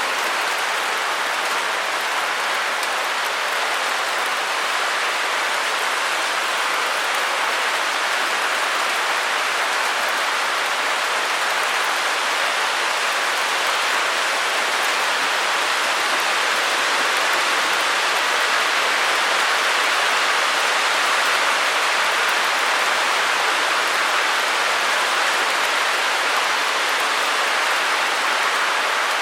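Steady white noise: an even, unchanging hiss, brightest in the upper middle and thin in the bass.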